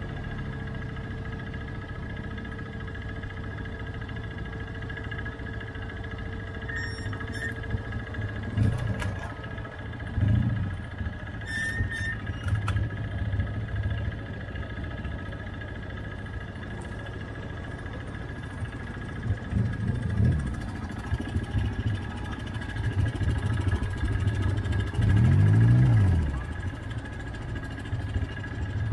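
ATV engines running at a steady idle, with a quad revving up and back down several times as it drives through shallow water, the longest and loudest rev near the end. A few sharp knocks sound in the first half.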